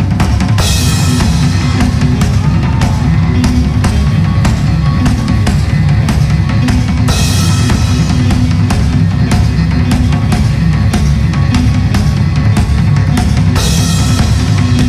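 Rock band playing an instrumental passage live, with the drum kit to the fore: kick and snare strokes in a steady beat under bass and guitar. A cymbal crash comes about half a second in, again halfway through and once more near the end.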